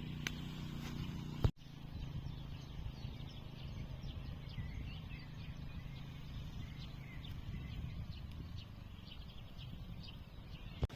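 Faint scattered bird chirps over a steady low rumble of wind on the microphone, with one short thump about a second and a half in.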